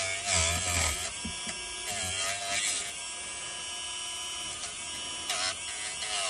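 Dremel rotary tool whining as it cuts through an old rubber hose that has gone hard with age. The pitch wavers over the first few seconds, then holds steadier.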